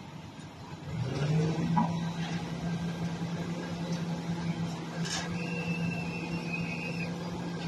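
Refuse truck machinery speeding up about a second in, then running at a steady hum. A steady high whine joins about five seconds in.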